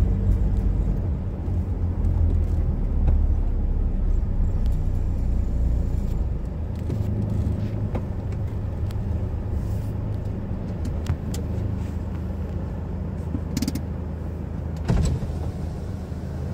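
Car engine and road noise heard from inside a moving car's cabin: a steady low hum. A sharp knock stands out about fifteen seconds in.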